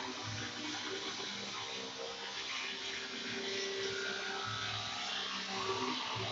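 Metal lathe running: a steady machine noise with faint, wavering tones underneath.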